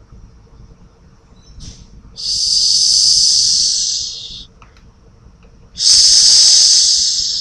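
Corn snake hissing: two long, loud hisses of about two seconds each, the second starting roughly a second and a half after the first ends.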